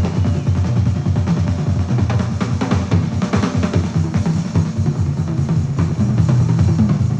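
Background music with a busy drum kit and heavy bass.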